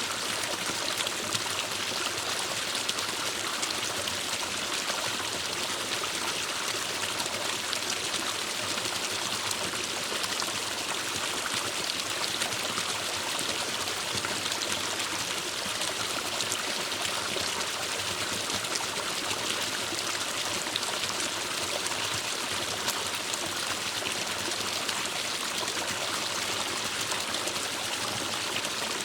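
Forest stream flowing and trickling steadily over rocks.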